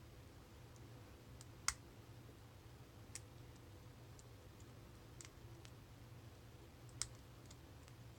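Lock pick and tension wrench working the pin stack of a Craftsman brass pin-tumbler padlock, giving a few faint, sharp metallic clicks spaced a second or more apart, two of them louder, over a low steady hum.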